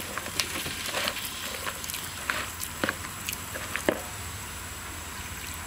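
A hand squishing and stirring thick, wet gram-flour bajji batter in a plastic bowl: irregular soft squelches with a few sharper clicks.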